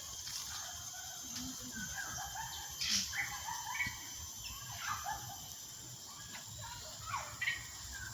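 Birds chirping and calling in short scattered notes, with a sharper call about three seconds in, over a faint steady high-pitched hum.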